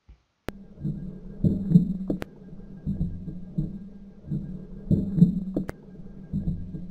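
Muffled underwater audio of a freestyle swimmer in a pool: low, rhythmic surging thumps from the arm strokes and kicks moving through the water, starting about half a second in, with a few sharp clicks.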